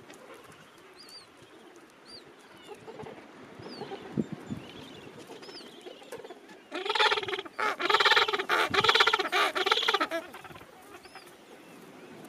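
Gentoo penguin giving a loud braying call of rapid pulses for about three seconds, starting just past the middle, over the low calling of the colony, with faint short chirps before it.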